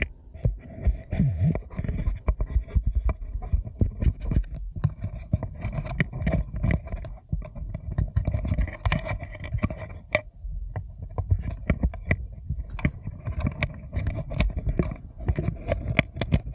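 Handling noise right on a 360 camera's microphone: a dense, irregular run of clicks, knocks and low thumps as the camera and its stick are fiddled with and fitted to a backpack mount, with a short pause partway through.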